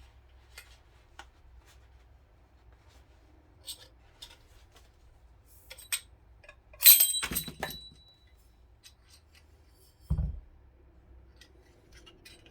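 Metal suppressor parts being handled: scattered small clicks, then a loud ringing metallic clink about seven seconds in followed by a few quicker clicks, and a dull thump about ten seconds in.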